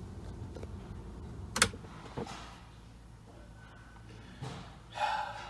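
A sharp click about a second and a half in, then a fainter click, against a low steady hum inside a parked vehicle's cab, with a brief rustle near the end.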